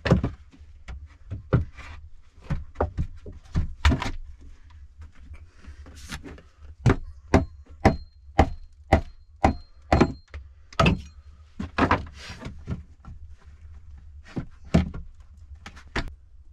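Hammer blows fastening fresh-sawn boards to a log wall: a long series of sharp wooden knocks in irregular runs, steadier at about two a second in the middle.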